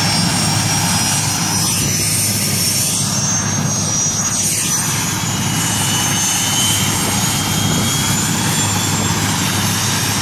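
Military helicopter running on the ground: steady, loud engine and rotor noise with a high turbine whine that slowly climbs in pitch.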